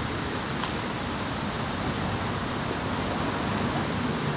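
Steady, even rushing noise with no pitch or rhythm, and a faint short click about half a second in.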